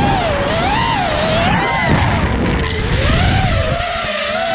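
FPV freestyle quadcopter's brushless motors whining, the pitch rising and falling with every throttle change and briefly dropping then swooping back up about halfway through, over a low rumble of wind on the onboard camera's microphone.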